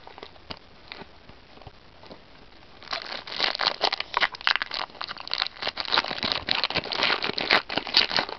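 Foil wrapper of a Yu-Gi-Oh booster pack crinkling and crackling as it is handled and pulled open, starting about three seconds in, after a few faint clicks.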